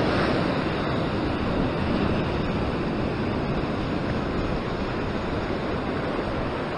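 Ocean surf breaking and washing over a rock ledge: a steady rush of churning white water.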